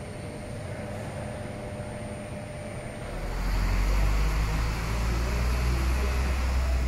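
Steady airport terminal ambience with a faint constant hum. About three seconds in it gives way to louder curbside background with a deep steady rumble and faint voices.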